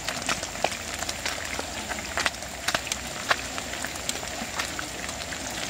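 Small river fish deep-frying in hot oil: a steady sizzle with irregular crackling pops.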